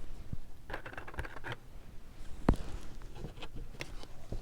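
Small clicks and rustling of costume-jewelry brooches being handled and set down, with one sharper click about two and a half seconds in.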